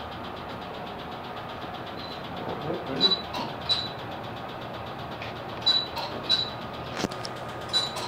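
Lutronic Spectra Q-switched Nd:YAG laser firing single pulses onto freckles on the skin. There are about six short sharp snaps, each with a brief high beep, starting about three seconds in and coming roughly every half second to second with a short pause in between. A steady hum from the laser unit runs underneath.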